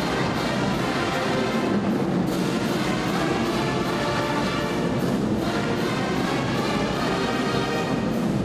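Brass and percussion music with a steady beat: horns over drums.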